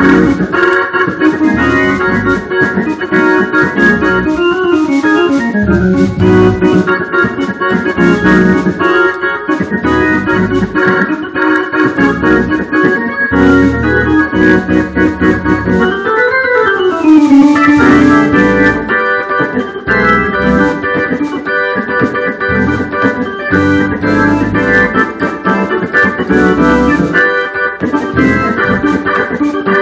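Two-manual organ playing a gospel song: full sustained chords over short, repeated bass notes in a steady groove.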